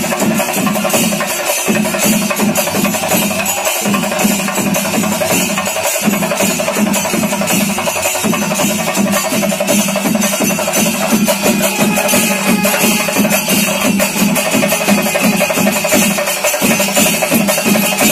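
Loud, fast rhythmic percussion music: drums struck in a dense, steady pattern under a continuous jingling shimmer of cymbals or bells.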